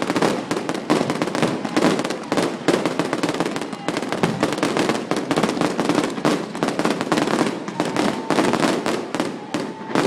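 Fireworks display going off in a dense barrage: many rapid bangs overlapping almost continuously, with no gaps.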